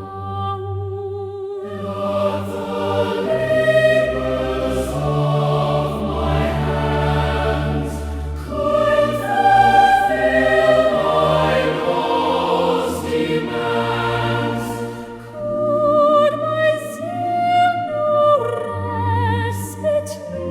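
Choir singing a slow hymn, several voice parts holding long notes with vibrato over a sustained low accompaniment.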